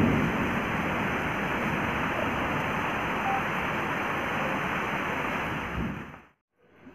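Steady rushing hiss with no clear pitch or rhythm, fading out about six seconds in.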